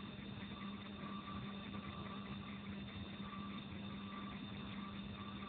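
Steady low hum with a fainter high whine over a background hiss, and a faint mid-pitched tone that comes and goes every second or so; nothing changes.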